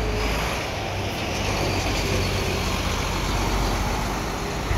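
Double-decker diesel coach driving slowly past and pulling away, its engine a steady low rumble.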